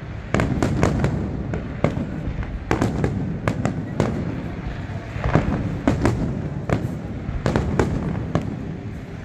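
Aerial fireworks shells bursting in quick, irregular succession: repeated sharp bangs over a steady low rumble.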